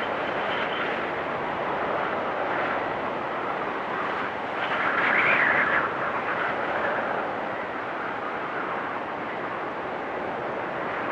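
Wind storm blowing steadily with a whistling rush, swelling into a louder, higher gust about five seconds in and then easing back.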